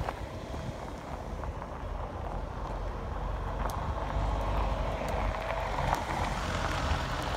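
A motor vehicle's engine running steadily, with wind rumbling on the microphone; the level rises slowly toward the end.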